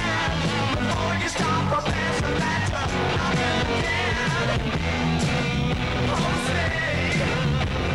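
Rock song with singing over a steady bass line.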